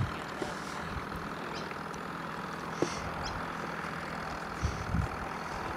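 Steady low background hum and rumble, with a few faint high chirps.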